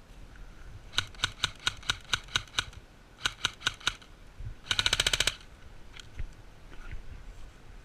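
Airsoft electric rifle firing: a string of semi-automatic shots, about three or four a second, a pause, a few more, then a short full-auto burst about five seconds in.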